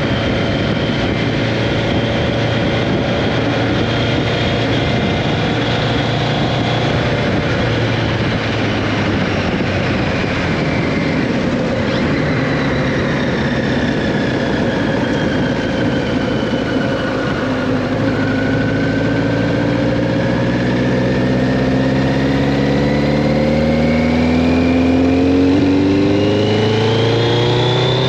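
1983 Kawasaki GPZ1100's inline-four engine running as the bike is ridden, with wind rushing past. Over the last ten seconds the engine note climbs steadily as it accelerates.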